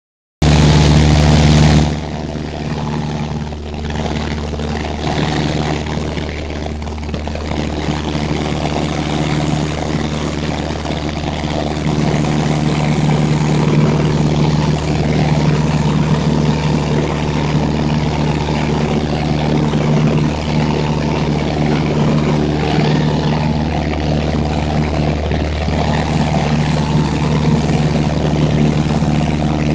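Seaplane's piston engine and propeller droning steadily in cruise flight, heard from inside the cabin. There is a louder rush in the first second or so before it settles into the steady drone, which grows slightly louder about halfway through.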